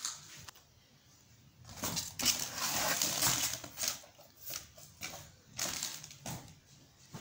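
Rustling and scraping of cardboard and paper packing as thin wooden clock boards are lifted and shifted in their box, with a few light knocks. The noise is loudest a couple of seconds in and comes in short bursts.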